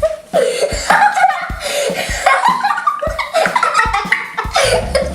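Young girls laughing and giggling in short, broken bursts.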